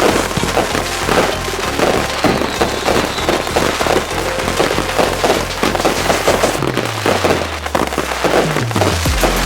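Consumer fireworks going off in rapid, repeated bangs and crackles, over background music.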